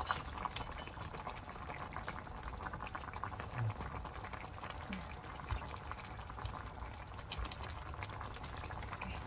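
Nga thongba fish-curry broth boiling in a pan, a steady dense bubbling, as pieces of fried fish are slid in with a spatula. There are a few soft knocks from the spatula against the pan.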